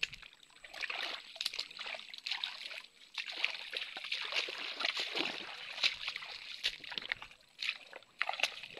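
Shallow water sloshing and splashing irregularly, with many small crackling clicks.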